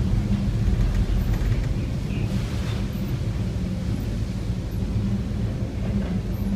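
Steady low drone of a cargo ship's engine heard on board, under a rushing haze of wind and sea noise.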